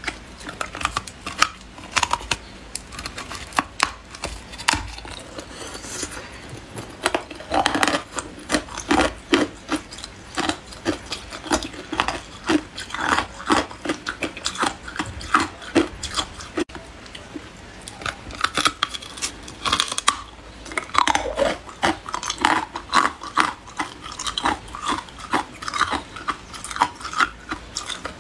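Hard ice cubes bitten and chewed: a steady run of sharp crunches and cracking as the ice breaks between the teeth.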